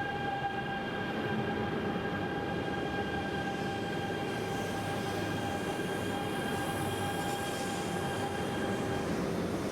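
E926 "East i" Shinkansen inspection train running into the station, a rumble under a steady high-pitched whine of several tones; the whine stops about nine seconds in.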